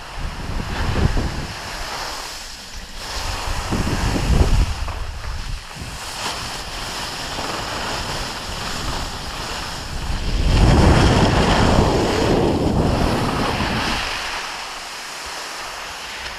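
Wind rushing over the microphone and skis hissing and scraping on snow on a downhill ski run. It comes in several swells, the longest and loudest about two-thirds of the way through.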